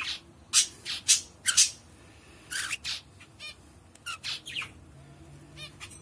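Female albino budgerigar giving a string of short, harsh squawks and chirps, about a dozen in quick irregular succession, thinning out over the second half.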